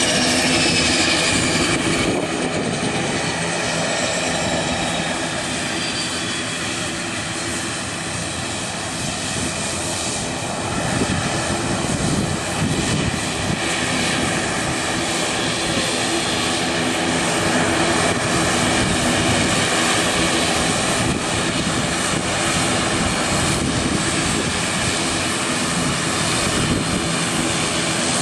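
ATR 42 turboprop taxiing past on the ground: a steady propeller drone with turbine whine, the whine falling in pitch over the first few seconds as it goes by.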